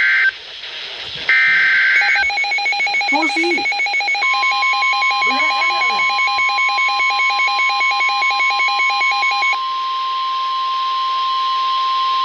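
Emergency Alert System sequence on NOAA Weather Radio: the tail of one SAME digital header burst and then another full burst, a buzzy screech, in the first two seconds; then an EAS decoder's rapid pulsing alert beep until about two-thirds of the way through. From about four seconds in, the steady 1050 Hz weather-radio warning alarm tone sounds over it and holds, the signal that a warning, here a confirmed tornado warning, is about to be read.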